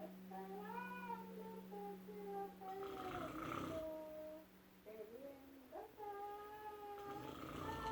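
A woman singing in long, wavering held notes with gliding pitch, while a man snores, a rasping snore breaking in about three seconds in and again near the end.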